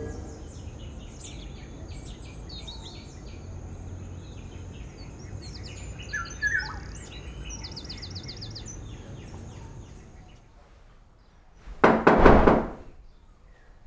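Birds chirping and twittering outside over a low steady background, with a quick trill about seven seconds in. Near the end, a short loud burst of thuds, about a second long.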